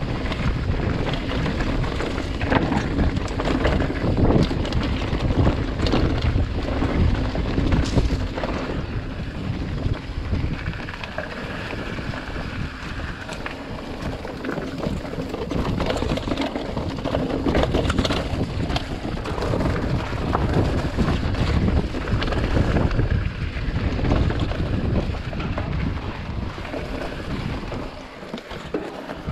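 Mountain bike riding down a rocky dirt trail: wind rushing over the action camera's microphone, with tyres on loose gravel and the bike rattling over rocks in frequent sharp knocks.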